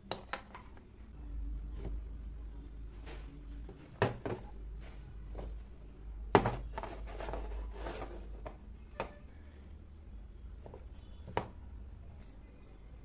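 Miniature dollhouse sofas and armchairs being handled and set down on a wooden tabletop: a few light taps and knocks, the loudest about four and six seconds in, with soft rubbing and handling between them.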